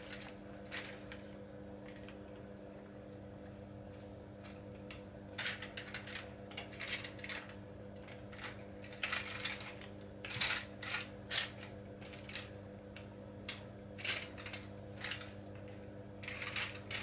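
Kitchen tongs clicking and scraping on a foil-lined oven tray as raw marinated chicken thighs are pulled apart and spread out, the foil crinkling. The sounds come in irregular clusters of clicks and rustles over a steady low hum.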